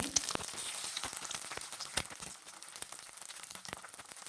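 Egg with chopped onion and chilli frying in hot mustard oil in a frying pan: a steady sizzle with many scattered crackles and pops, easing slightly toward the end.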